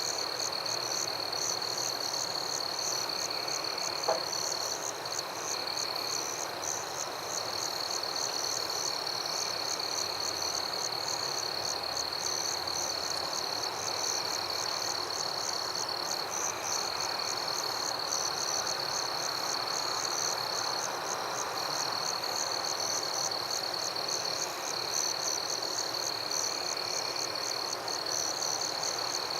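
Night chorus of frogs and insects. A steady high trill runs throughout, with rapid pulsing chirps above it and softer calls repeating every couple of seconds, over a low hiss. There is a single faint click about four seconds in.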